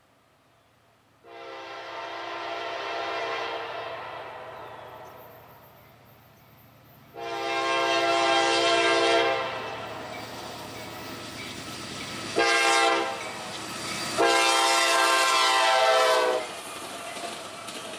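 Diesel freight locomotive's multi-note air horn sounding the grade-crossing signal: two long blasts, one short, then one long. The first blast fades away gradually. The train rumbles steadily between the blasts.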